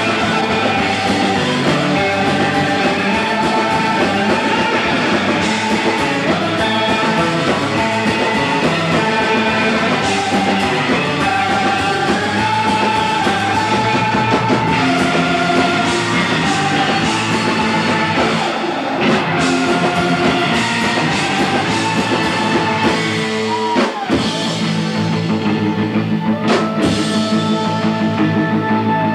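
Live surf-rock band playing: electric guitars, bass and drums through the club PA, with held lead notes over the beat.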